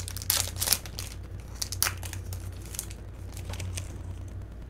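Foil Yu-Gi-Oh Lightning Overdrive booster pack being torn open and crinkled: a quick run of sharp crackles in the first two seconds, thinning out after that, over a steady low hum.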